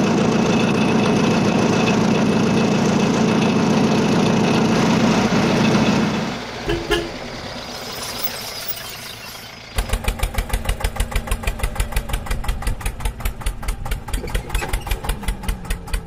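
Motor-vehicle engine sounds, most likely effects laid over the toy vehicles. A loud steady engine run for about six seconds drops away. Then, a little past halfway, an idling engine with a fast, even chug of about five beats a second sets in.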